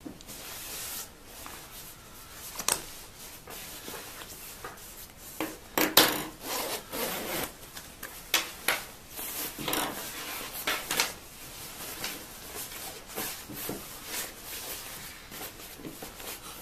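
Rustling and rubbing of a quilted nylon down jacket being handled and folded on a wooden table, with several sharp clicks and knocks, the loudest about six seconds in.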